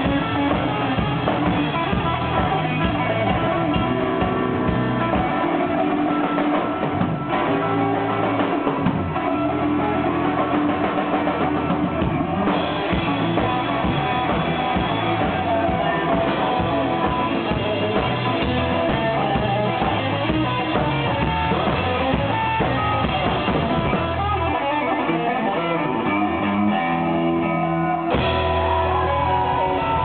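Live band playing: electric guitar over a full drum kit, continuous and loud.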